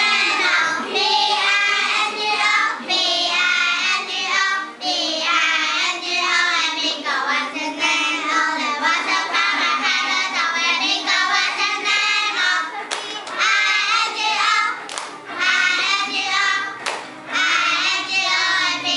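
A small group of young girls singing an English song together, with a few sharp clicks about two-thirds of the way through.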